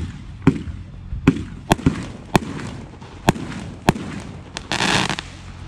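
A 16-shot 500-gram firework cake firing: about nine sharp bangs at irregular spacing as its shots launch and burst overhead, with a short rush of noise about five seconds in.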